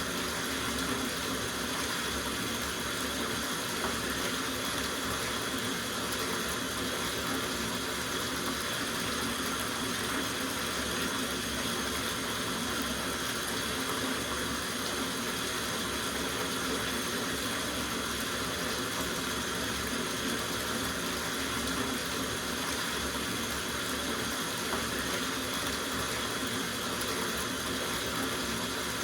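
Tap water running steadily into a soaking bathtub, an even splashing rush that does not change.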